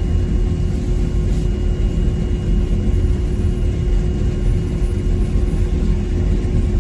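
Sugar beet piling machinery running steadily: a loud, unbroken low rumble with a constant hum over it.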